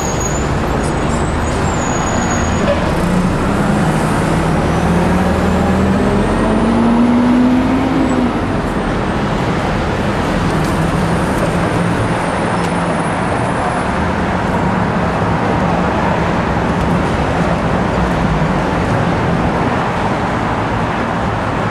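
City street traffic: a steady noise of passing cars and buses, with one vehicle's engine rising in pitch as it speeds up a few seconds in.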